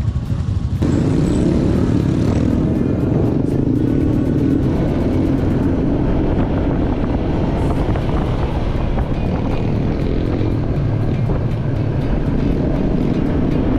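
Motorcycle running on the road, a loud steady engine and road noise that steps up about a second in and then holds.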